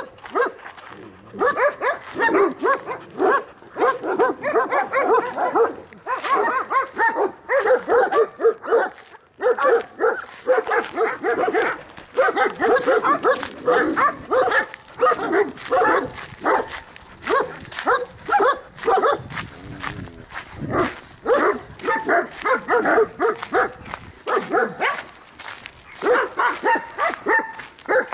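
Dog barking in fast runs of several barks a second, with short pauses between the runs.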